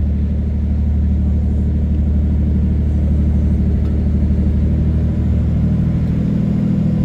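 Tour boat's engine running steadily with a deep, even hum; its tone shifts a little about five seconds in.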